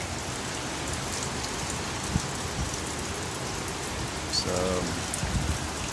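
Steady hiss of light rain and wind outdoors after a hurricane, with a single faint click about two seconds in.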